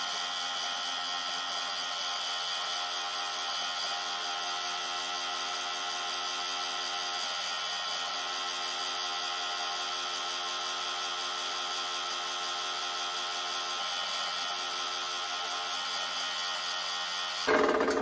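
Benchtop drill press running at a steady pitch while drilling blind holes into an aluminum plate, with a short louder noise near the end.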